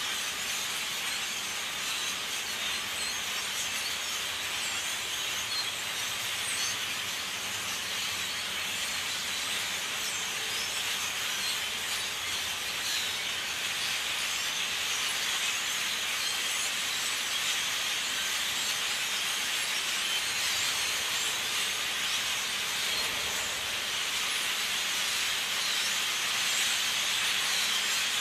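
A huge flock of blackbirds calling all at once, a dense, unbroken chatter of countless overlapping calls that grows slightly louder toward the end.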